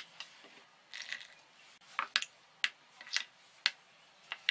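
Metal spoon stirring a thick flour-and-water paste in a small steel bowl. Short wet squelching strokes and light clinks of the spoon against the bowl come at irregular moments, about once a second.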